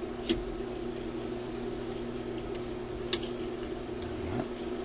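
A steady low electrical hum, with two sharp clicks about three seconds apart as the tone arm and needle of a Newcomb TR-1656-M record player are handled.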